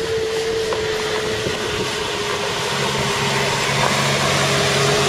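Mercedes-Benz Sprinter minibus engine running as the van drives along a dirt track. A low engine hum comes in a little past halfway, over a steady rushing noise.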